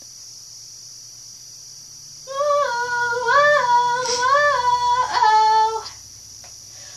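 A young woman's high voice singing alone, without accompaniment, as she sings along to music in her earbuds, the notes gliding up and down. The singing starts a little over two seconds in and breaks off about a second before the end, with a faint steady hum before and after.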